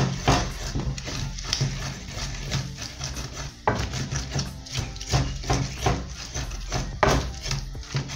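Greens and tomato being crushed and ground in an earthenware grinding bowl: a quick, uneven run of knocks and scrapes against the clay.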